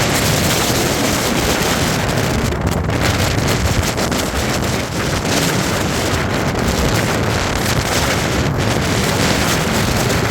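Gale-force wind, gusting at about 60–70 mph, blasting straight into the microphone: a loud, continuous buffeting rush of noise from deep rumble to high hiss.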